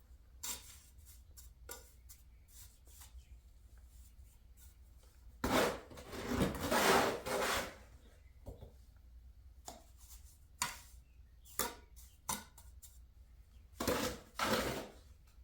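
A mason's trowel scraping mortar on brick: scattered short scrapes, with two longer, louder scraping runs, one lasting about two seconds in the middle and one near the end.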